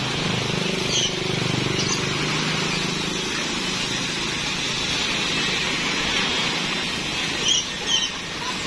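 Isuzu Elf dump truck's diesel engine running while its raised bed unloads crushed stone, with the steady rush of gravel sliding off the tailgate. The engine's hum is stronger in the first few seconds, then settles. Birds chirp briefly a few times.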